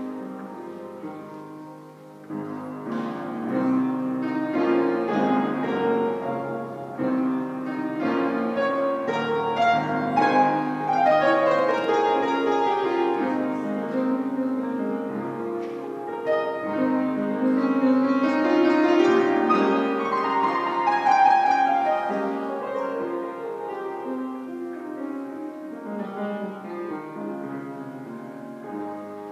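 Piano music in a classical style, with sweeping runs up and down the keyboard; it grows louder through the middle and softens near the end.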